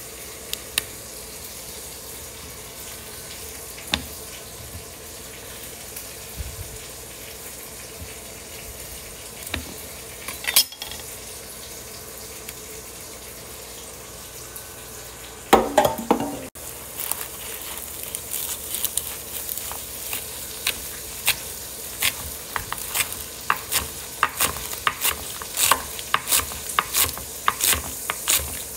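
Chef's knife chopping green onions on a plastic cutting board: uneven sharp taps, a few a second, through the second half, after a brief louder clatter. Before that, a steady hiss with only an occasional soft knock while an avocado is cut by hand.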